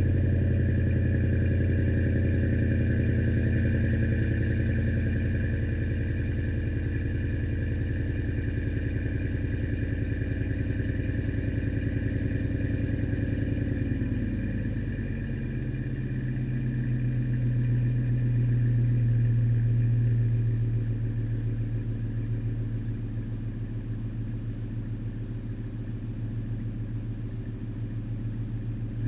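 Ford F-150's 5.4-litre three-valve V8 idling through a Flowmaster 40 Series muffler just after a cold start. It runs a steady fast cold idle that settles to a lower idle about halfway through.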